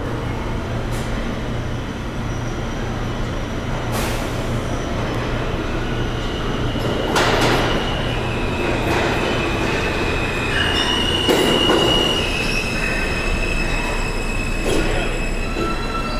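An R160A New York City subway train arriving at an underground station platform: a steady rumble of wheels on rails as it approaches, joined about halfway by high, steady wheel and brake squeal as it slows to a stop, with a few clanks along the way.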